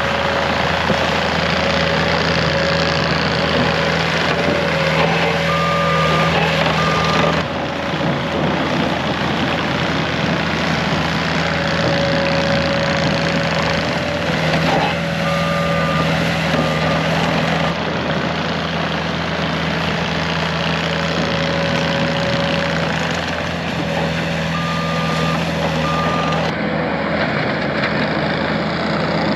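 Loader engine running steadily while its reversing alarm sounds three times, each time a longer beep followed by a short one, during snow clearing.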